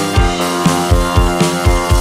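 Background music with a steady drum beat under sustained instrument tones.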